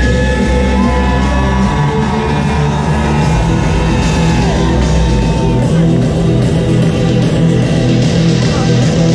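Loud electronic dance music from a festival sound system, with a heavy held bass that changes pitch a few times and sustained synth tones above it.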